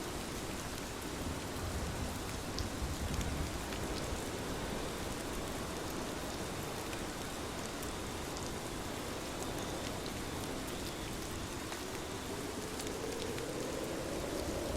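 Steady rain with scattered individual drop ticks. A low rumble swells near the end.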